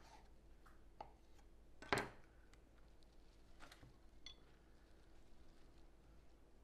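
Quiet kitchen handling: a knife cutting a blanched cabbage leaf on a wooden cutting board, with one sharp knock of the knife on the board about two seconds in and a few faint clicks.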